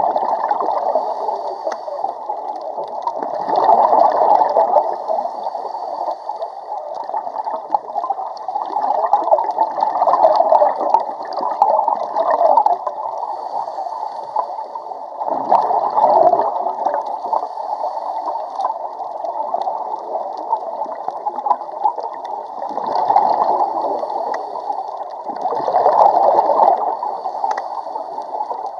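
Muffled bubbling and gurgling underwater, swelling every few seconds in time with a scuba diver's exhalations through the regulator.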